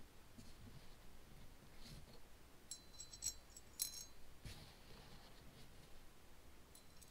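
Several faint metallic clinks, bunched in the middle, as small steel screws are dropped into the screw holes of a nitro engine's aluminium cylinder head.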